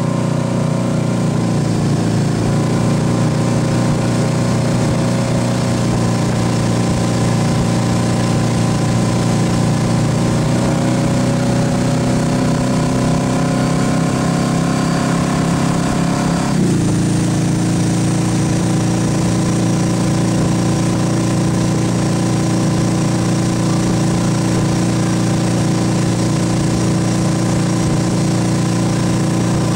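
MasterCraft X2 ski boat's inboard engine running steadily under load while towing a slalom skier, with a broad rush of wind and wake water over it. A little past halfway its note changes abruptly, then holds steady again.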